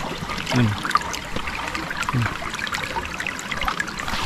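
Shallow river water trickling and splashing, with many small splashes as hands feel about in it for shrimp and crabs.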